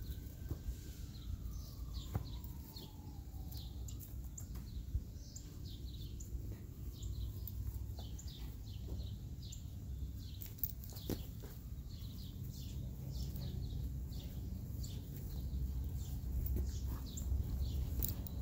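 Small birds chirping repeatedly in the background over a steady low rumble, with a few faint clicks.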